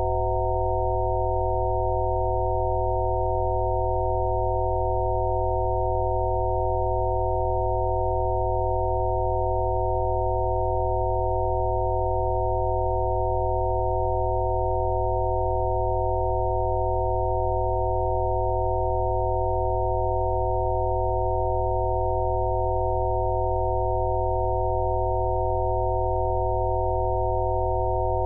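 Synthesized Rife-frequency tones: several steady pure electronic tones sounding together as a held chord, over a deep low drone, with no change in pitch or level.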